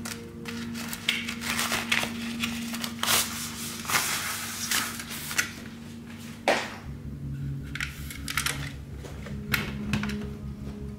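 Handling noises: a fabric drawstring storage bag rustling as it is opened, then the folded aluminium slats of a Captain Stag compact roll table clicking and clacking as they are slid out and laid on a metal surface. Soft background music with steady low notes plays underneath.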